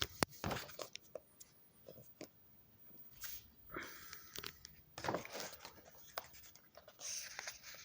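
Pages of a book being handled and turned: irregular paper rustles and crinkles with sharp little clicks and taps.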